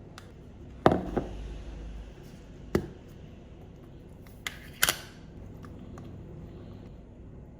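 A handful of sharp clacks and knocks of kitchenware being handled, five in all and unevenly spaced, the first and loudest about a second in.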